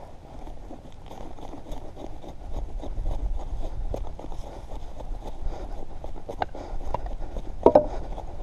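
Knife blade shaving thin curls off a stick of wood to make a feather stick: a run of short, irregular scrapes. One louder knock comes near the end.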